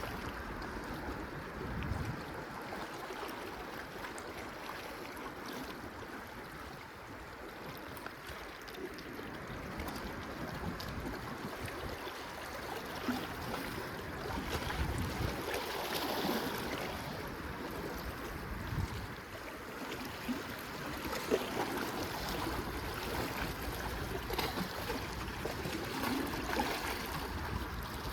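Steady outdoor water noise, gentle lapping and trickling, with a few faint clicks and occasional low rumbles.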